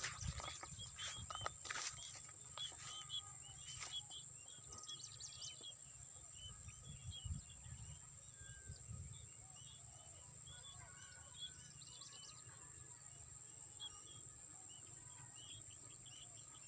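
Many small birds chirping in short, quick, overlapping calls, over a faint low rumble and a steady high hiss. A few sharp clicks sound in the first four seconds.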